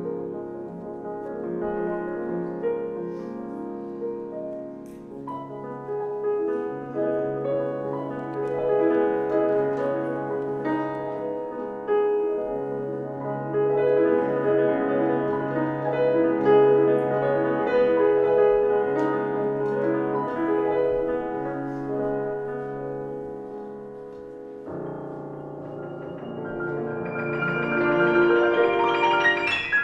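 Solo grand piano playing classical music: full sustained chords over held bass notes, growing louder in the last few seconds.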